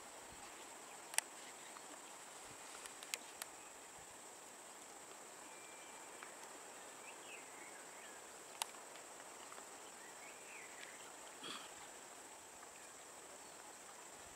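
Quiet roadside jungle ambience: a steady high insect drone with a few faint bird chirps, and several sharp clicks.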